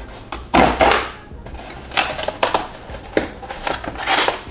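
Small kraft cardboard box being torn open by hand, with a loud rip about half a second in, then several shorter scrapes and rustles of cardboard and paper, and another loud tear near the end.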